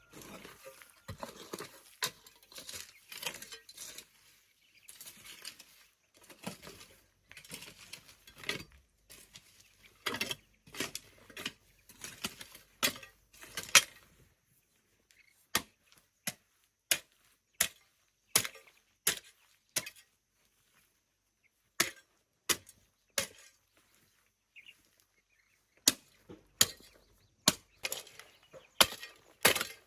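Repeated chopping strikes of a hand tool: a dense run of knocks and scrapes, then single sharp strikes spaced about a second apart from about halfway through.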